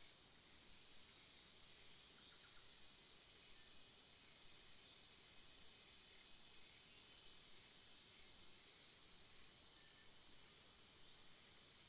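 Near silence with a faint steady hiss, broken by five short, high chirps a second or more apart, like a small bird calling.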